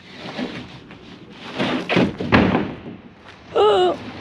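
A sheet of OSB roof sheathing being lifted and slid up onto the roof edge: scraping and knocks of wood on wood, with one sharp knock about two and a half seconds in. A short wavering vocal sound follows near the end.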